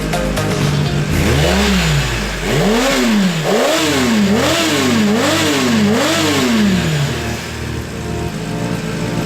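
Kawasaki ZX10R's 1000cc engine revved through a Mivv slip-on exhaust built to European standard: one throttle blip, then a quick run of about six, each one rising and falling in pitch. Background music plays underneath.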